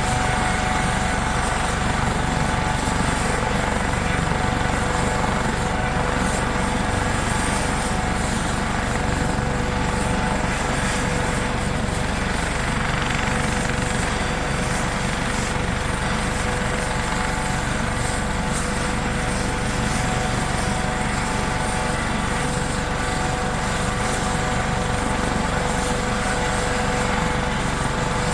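Helicopter running at a steady level, with two steady whining tones over its rumble and no change in pitch or loudness.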